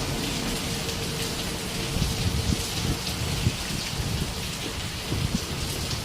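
Heavy rain pouring down in a steady hiss, with scattered low thumps through it.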